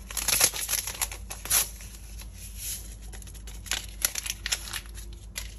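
A paper packet of vanilla crinkling and rustling as it is torn and emptied into a mixing bowl, with a few light, irregular clicks.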